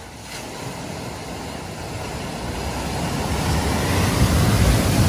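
Lexus SUV ploughing through flood water at a ford, its bow wave and spray rushing and splashing over a low rumble, growing steadily louder as it approaches and loudest near the end.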